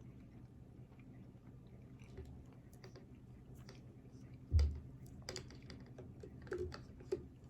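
A person eating close to the microphone: scattered small clicks of chewing and mouth sounds. A single dull thump about four and a half seconds in is the loudest sound, with a few softer knocks and clicks after it.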